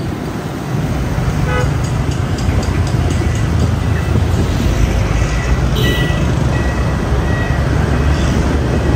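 Riding a motorbike through city traffic: a steady low rumble of engine and road noise, with a few short horn toots from nearby vehicles in the middle.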